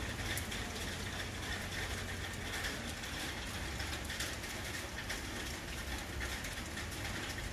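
Steady roadside street ambience: a constant low rumble and hiss, with scattered light clicks.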